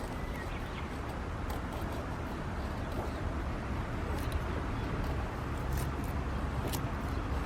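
Campfire of hinoki (Japanese cypress) firewood crackling, with sparse sharp pops every second or so over a steady low rumble.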